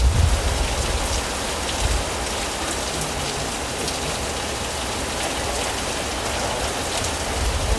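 Steady rain falling: an even hiss with many small scattered drop taps.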